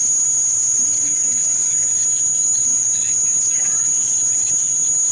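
A steady, unbroken high-pitched whine at an even level.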